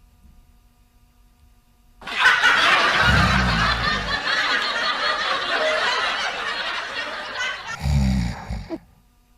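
A person snoring: a long breathy hiss with two short, low, rattling snorts about five seconds apart.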